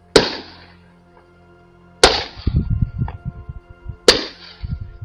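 Three shotgun shots, about two seconds apart, each with a short echoing tail and followed by low rumbling, over a sustained music drone.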